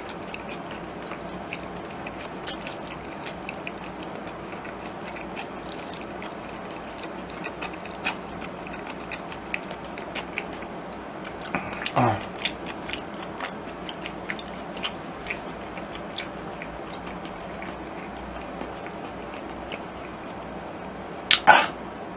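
A person eating jjajangmyeon noodles close to the microphone: small wet chewing and slurping clicks scattered throughout over a steady background hiss, with louder mouthfuls about halfway through and again near the end.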